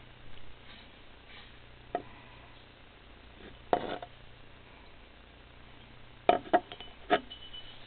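A ceramic mug being handled and turned in the hand, giving a few light knocks and clicks: one about two seconds in, a louder one near four seconds, and three in quick succession near the end.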